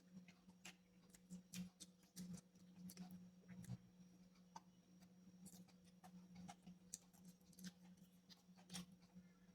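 Close-miked chewing: irregular soft clicks and crunches of food being eaten, over a steady low hum.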